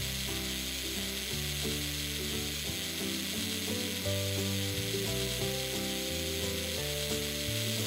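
Sound effect of a small remote-control toy car's electric motor whirring steadily, with soft background music underneath.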